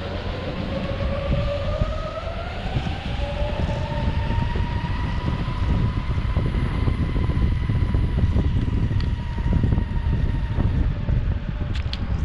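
Metroboard X electric skateboard riding over brick pavers: the motor whine rises in pitch over the first few seconds as the board speeds up, then holds steady, over a continuous rumble of the wheels on the paving blocks.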